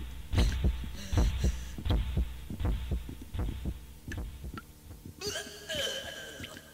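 Repeated dull thumps, about two to three a second, growing fainter over about five seconds, then a brief pitched, voice-like sound that wavers in pitch near the end.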